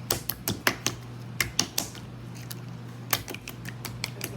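Jiggly slime squished and jiggled in the hand, giving irregular sharp wet clicks and pops in quick clusters.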